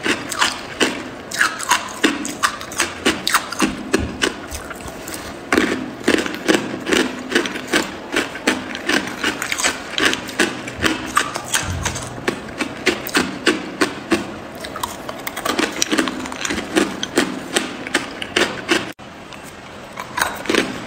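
Chunks of crushed ice being chewed, a dense run of sharp crunches and cracks several times a second, with a brief lull near the end.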